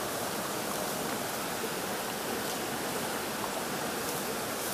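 Steady, even rush of a shallow river flowing.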